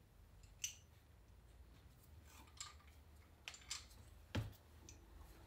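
A few faint clinks and light knocks of the metal parts of a disassembled electric hammer being handled on a workbench, with the loudest knock about four and a half seconds in.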